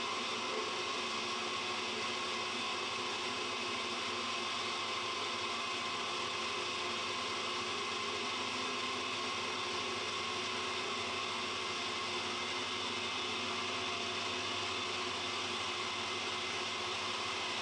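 Centrifugal gold concentrator running steadily with the wash water and crushed ore slurry going through it: a constant machine whir with no change.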